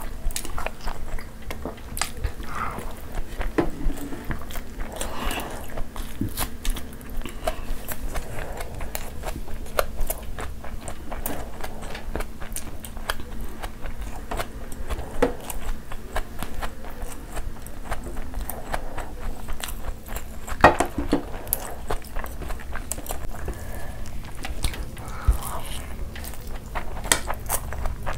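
Close-miked ASMR eating sounds: chewing and wet mouth sounds of people eating rice and curry by hand, with many small sharp clicks throughout.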